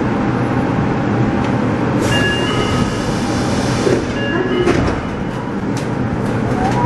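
Steady rumble and hum of a subway train standing at an underground station platform. From about two to four seconds in, a brighter hiss and a few short steady tones are heard.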